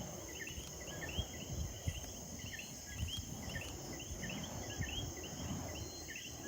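A nature chorus of many short, overlapping chirping calls, several a second, over a steady high-pitched insect hum, with low irregular rumbling beneath.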